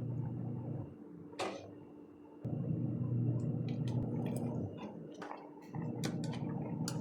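Running water that starts and stops abruptly three times, with scattered light clicks and taps, one louder click about a second and a half in.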